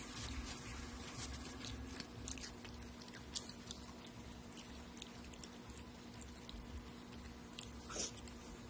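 Close-up chewing and crunching of raw cucumber and tomato salad, with scattered small clicks of a fork against a glass bowl and one brief louder sound about eight seconds in.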